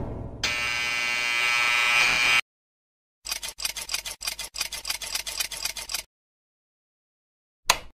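Synthetic logo-intro sound effects: a whoosh fades out, then a steady buzzing tone holds for about two seconds and cuts off. After a short gap comes about three seconds of rapid clicking while the letters appear, and a brief blip near the end.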